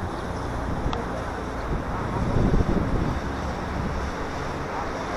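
Wind buffeting the microphone: a steady low rumble and hiss that swells in a gust about halfway through.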